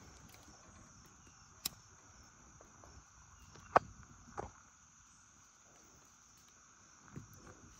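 Faint, steady chirring of crickets and other insects, with a few sharp clicks and knocks, the loudest nearly four seconds in, as a hand moves charcoal briquettes about in a small metal grill.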